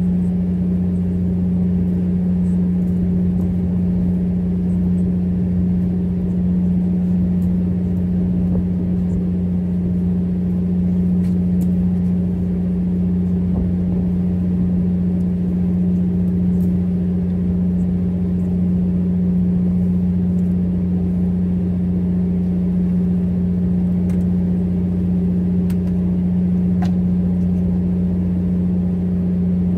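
Fishing boat's engine running steadily: a constant low drone with a strong hum and a few fainter tones above it, unchanged throughout.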